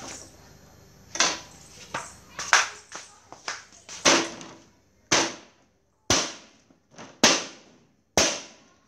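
Cleaver chopping through a boiled whole chicken on a wooden cutting board: about ten sharp chops, irregular at first, then heavier strokes about once a second in the second half.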